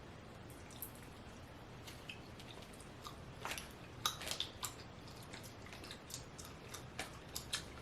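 Faint chewing of soft fruit jelly candies: scattered small wet clicks and squishes, coming more often from about three seconds in.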